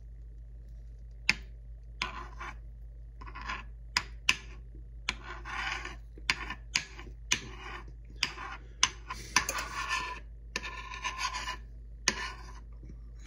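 Metal spoon scraping and tapping across a nonstick frying pan as it spreads melting margarine: a series of short scraping strokes with sharp clicks between them, starting about a second in.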